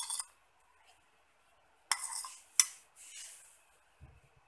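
A metal spoon clinking and scraping against a small bowl as coloured milk is spooned and poured out, with three sharp clinks: one at the start, one about two seconds in and another just after.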